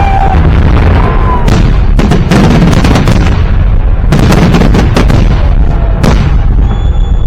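Victory Day fireworks salute: a dense run of booming shell bursts and sharp bangs over a constant low rumble. The bangs thin out near the end.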